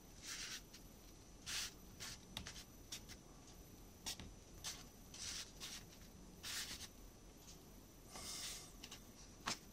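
Faint, scattered brushing and handling sounds of hands pressing on small laser-cut wooden model parts, with a soft stroke every second or so.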